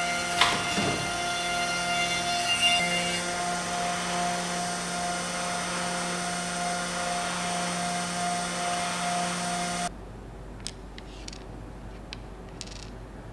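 Electric motor of a stationary woodworking machine running steadily with a mechanical hum and whine, with sharp clicks near the start as an oak panel is fed along its fence. About ten seconds in it stops suddenly, and a few faint light clicks follow as small metal bearings are set on a tabletop.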